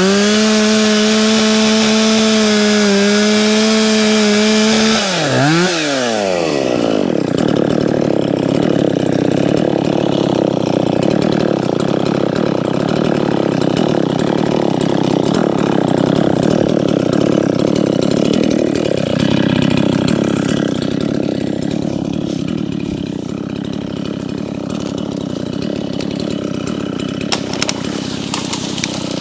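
Two-stroke gas chainsaw revved up to a high, steady full-throttle whine for about five seconds. The pitch then drops and the saw keeps running at a lower, rougher speed for the rest.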